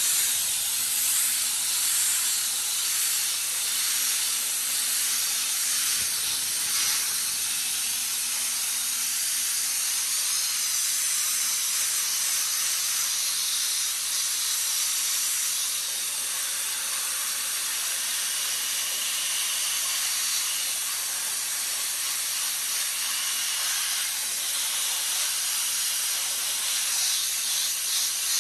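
Applied Aquablaster wet abrasive blaster spraying a jet of water and grit against a steel tank hull to strip the paint, a steady loud hiss. A faint low hum sits underneath.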